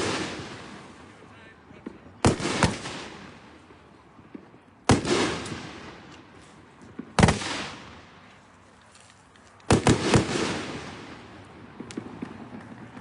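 Minor 49er consumer firework cake firing hard-hitting shots: loud, sharp reports about every two and a half seconds, each trailing off over a second or so. The last one comes as a quick double.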